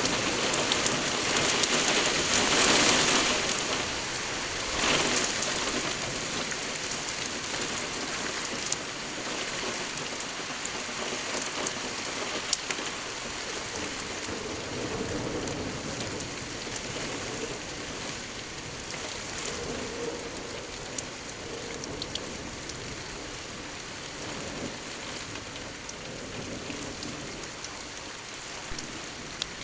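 Heavy rain falling on a surface, loudest in the first few seconds and then slowly easing, with occasional sharp ticks of drops striking something close by.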